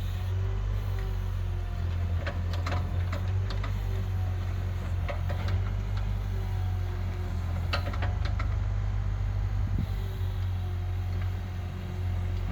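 Komatsu PC30 mini excavator's diesel engine running with a steady low hum and a higher whine that wavers as it works. Several sharp knocks come through, a cluster in the first few seconds and another pair a little past halfway.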